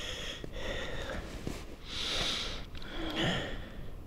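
A man breathing and sniffing through his nose close to the microphone: three or four separate noisy breaths, with a few faint ticks between them.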